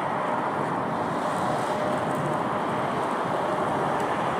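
Douglas DC-3's twin Pratt & Whitney R-1830 radial engines running steadily, heard from a distance as the plane rolls along the runway with its tail up.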